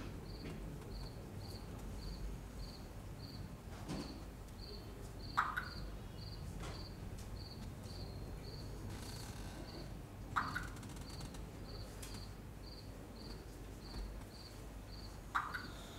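A faint, steady cricket-like chirp repeating about twice a second, with a few soft knocks and clicks scattered through it.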